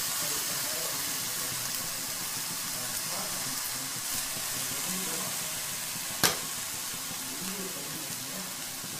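Stir-fried vegetables and egg sizzling steadily in a hot kadai under freshly added cooked rice, with a single sharp click about six seconds in.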